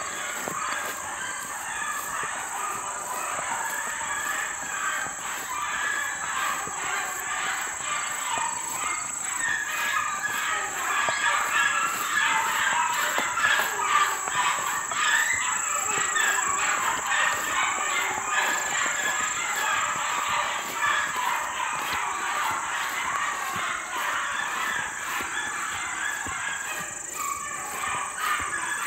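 A pack of beagles baying as they run a rabbit, many voices overlapping, growing louder toward the middle of the stretch and easing off near the end.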